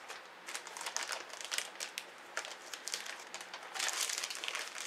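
Plastic packaging of a pack of craft vinyl sheets crinkling and rustling as it is handled, in irregular crackles that are busiest near the end.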